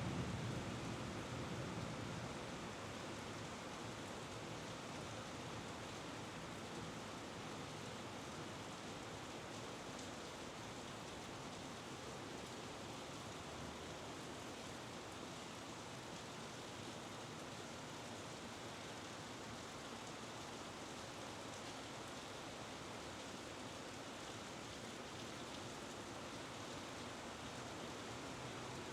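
Steady rain falling during a thunderstorm, an even hiss throughout. A low rumble of thunder fades away in the first couple of seconds.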